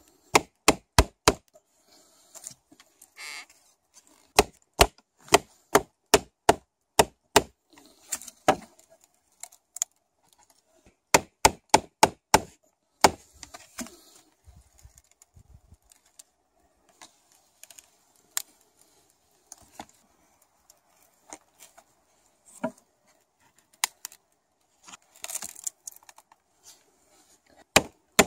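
Sharp wooden knocks as a sheath knife is driven into a split wooden board, struck in quick runs of about two a second. In the middle stretch the strikes come sparser and quieter, with light scraping between them.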